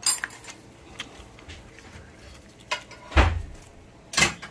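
A few separate knocks and clicks of a drinking glass and tableware being handled on a table, the loudest a dull thump about three seconds in.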